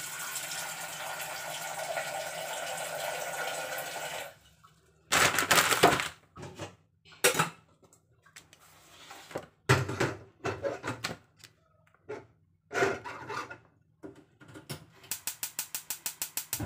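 Tap water running into a stainless steel saucepan, stopping about four seconds in, followed by scattered knocks and clatters as the pot is handled and set on a gas hob. Near the end comes a fast, even run of clicks from the gas hob's igniter as the burner is lit.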